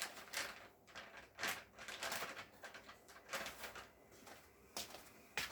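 Wet wipes being pulled out and rubbed over a surface: a string of short, irregular rustling and wiping noises.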